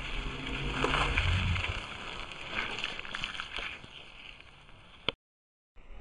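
Mountain bike tyres rolling on asphalt, with wind noise on a moving microphone. The noise swells about a second in, has a few light clicks, then fades and cuts off abruptly near the end.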